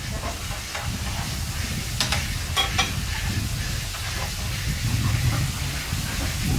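Bee larvae sizzling in a frying pan on a portable gas stove, under a steady low rumble. A few sharp clicks come about two to three seconds in.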